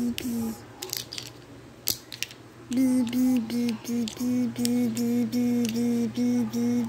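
A voice humming a quick string of short notes on nearly one pitch, about three notes a second, stopping briefly near the start and picking up again about three seconds in. Hard plastic alphabet letters click and tap against the table in between.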